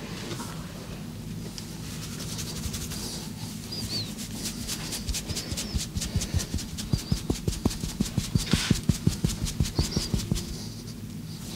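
Hands striking a body in rhythmic percussive massage strokes. They start softly, build to about five quick slaps a second and grow louder, then stop shortly before the end.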